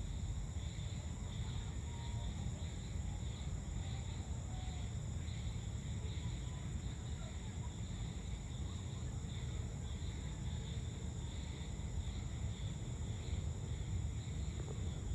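Steady chorus of insects trilling at several high pitches, over a low, even rumble.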